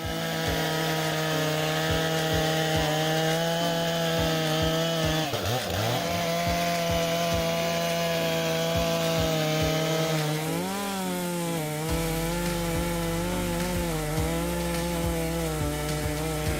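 Large chainsaw running at high revs while cutting into a tree trunk, its engine note steady. The pitch dips briefly about five seconds in and wavers again around eleven seconds.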